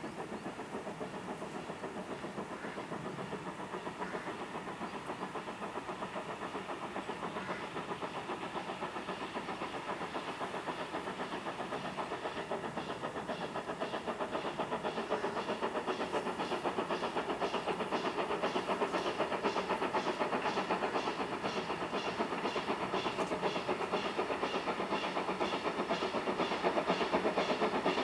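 LMS Ivatt Class 2MT 2-6-0 steam locomotive 46521 approaching under steam, its running sound growing steadily louder. A fast, even beat comes through more and more clearly over the second half as it draws near.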